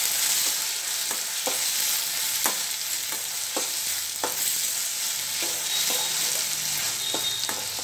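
Onions, tomatoes and green chillies sizzling in hot oil in a stainless steel kadai while a metal spatula stirs them, clinking and scraping against the pan at irregular intervals, about every half second to second.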